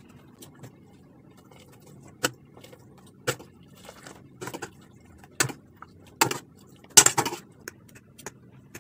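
A metal utensil clinking and scraping against a wok as cooked instant noodles are tossed with their seasoning: a scatter of sharp clinks, loudest in a quick cluster about seven seconds in.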